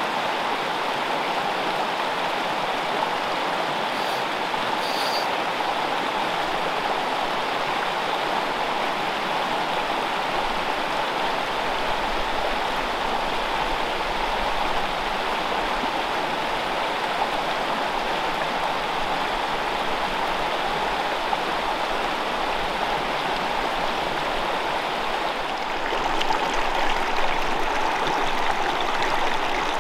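Small freestone mountain stream running over rocks: a steady rush of water that grows a little louder about four seconds before the end.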